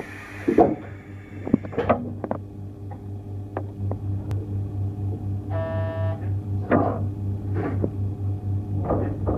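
Cab of a JR Hokkaido 711 series electric train standing still: a steady, throbbing low hum from its onboard equipment, with scattered clicks and knocks and a short buzzer tone about five and a half seconds in.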